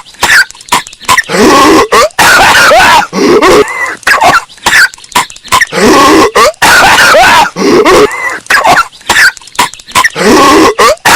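Patrick Star's cartoon voice coughing in repeated hacking fits, looped over and over and bass-boosted so it is very loud and distorted. Bursts of coughs come about every second with brief gaps between.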